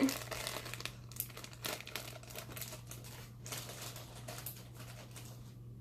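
Crinkling and rustling, likely plastic packaging, in irregular crackly bursts as a Thai bird pepper is picked out of its packaging; it stops shortly before the end.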